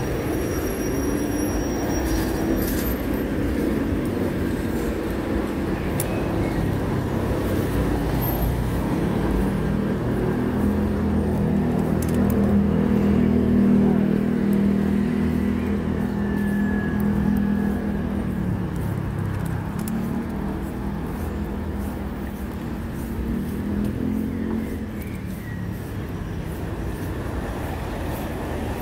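City street traffic: vehicles running by, with one large vehicle's low, steady hum coming close and loudest about halfway through, then fading.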